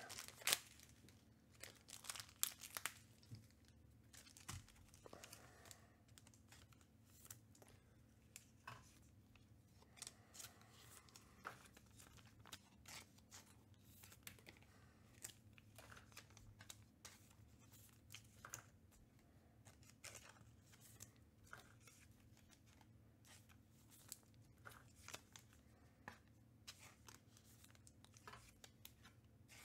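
Faint crinkling and tearing of 2021 Panini Contenders Baseball card packs being opened, with cards handled in between: an irregular scatter of short crackles and clicks.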